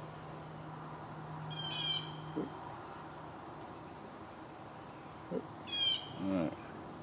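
Steady high-pitched drone of insects, with short bird calls about two seconds in and again near six seconds, followed by a brief low sound.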